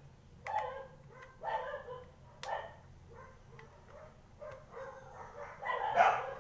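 A dog barking repeatedly, roughly once a second, with several barks close together and the loudest near the end. A few sharp clicks fall between the barks.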